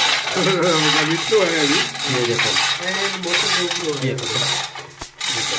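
Hand-hauled chain pulley block (chain hoist) lifting pump pipe out of a borewell, its ratchet clicking rapidly and continuously, with a wavering pitched squeal over the clicking. The clicking drops out briefly near the end.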